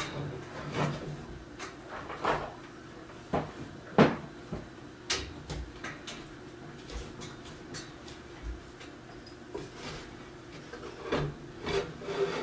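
Parts of a bathroom storage rack being handled during assembly: scattered light knocks, clicks and rubbing as a shelf is fitted and its screws are started by hand, with one sharper knock about four seconds in.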